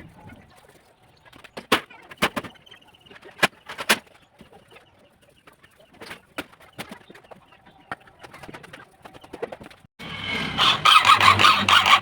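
Several separate sharp knocks, then a loud, fast rasping scrape that starts abruptly about ten seconds in.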